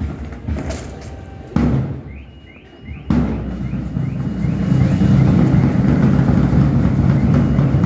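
Parade guard's boots stamping in unison on the ground, with two heavy stamps about a second and a half apart. From about three seconds in, a military band with drums plays loudly and keeps going.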